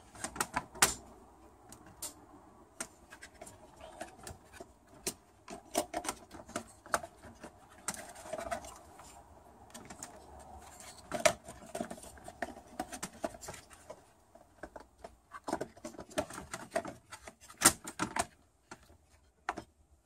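Irregular light clicks and taps of plastic and wiring, with a few sharper knocks, as the circuit board and wires of a Mercedes PSE central-locking pump are pressed back into its plastic housing.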